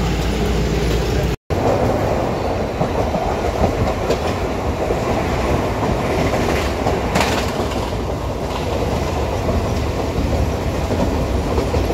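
Moving passenger train: steady running noise of the wheels and carriage on the track, with a few faint clicks over rail joints. It follows a brief total cut-out about a second and a half in.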